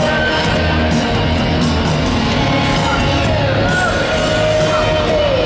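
Rock band playing live at a loud, steady level, with electric guitars, bass and drums, heard from the audience through the stage PA.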